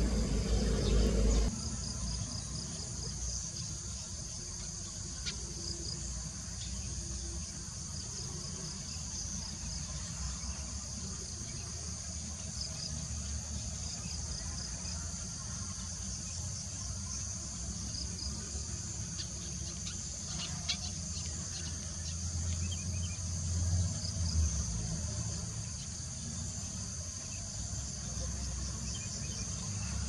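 A steady, high-pitched insect chorus, a continuous shrill trilling, over a low rumble. About a second and a half in, a louder, lower-pitched sound stops abruptly and the insects carry on alone.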